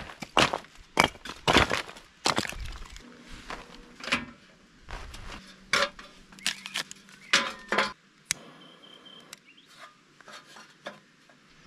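Firewood and kindling being handled and set into a metal fire pit: a quick run of knocks, clinks and snaps that thins out after about eight seconds.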